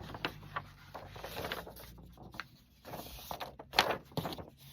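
Paper rustling and crinkling as vintage paper pieces are handled, with scattered small clicks and one sharper handling knock about four seconds in.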